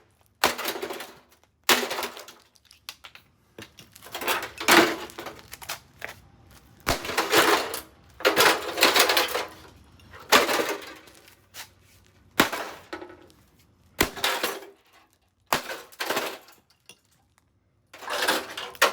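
A gutted Emerson MW7305BC microwave's metal casing and parts being struck hard, about a dozen heavy blows every second or two, each followed by a short clatter of loose metal and broken pieces.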